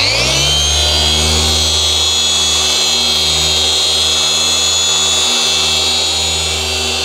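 Handheld dual-action polisher with a foam pad, whining up to speed in the first second and then running steadily as it is worked over a metal van roof to polish out rust.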